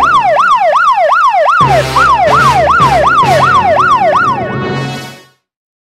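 Police-style siren sound effect: a fast wailing yelp sweeping up and down about two and a half times a second over a low steady hum. It fades out near the end and stops.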